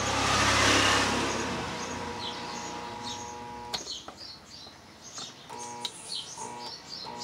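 Truper centrifugal water pump's electric motor humming on power without getting going, because the pump is stuck. A rushing noise comes first, then the steady hum, which cuts off with a click about halfway through and comes back in short bursts near the end. Birds chirp throughout.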